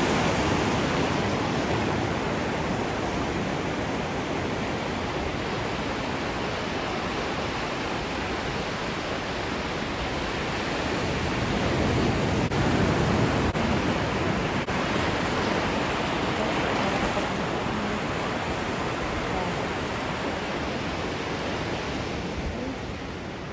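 Ocean waves breaking and washing on the shore, a continuous rushing surf that swells and eases slowly.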